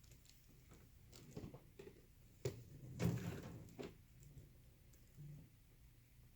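A few soft knocks and rustles of objects being handled, the loudest about two and a half and three seconds in.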